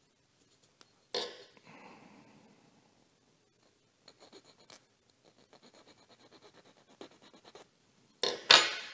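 Small hand needle file rasping in quick, short, even strokes on the tip of a thin statue antenna, cutting its end to an angle; about four to five strokes a second from about four seconds in.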